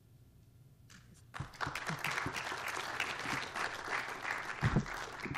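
Audience applauding. It starts about a second and a half in and goes on as dense, steady clapping.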